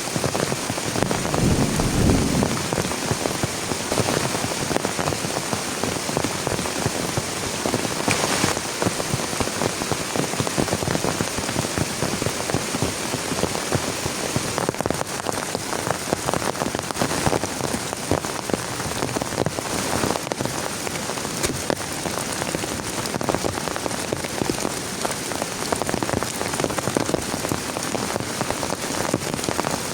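Heavy rain falling steadily, a dense patter of drops with many small sharp ticks, and a brief low rumble about a second or two in.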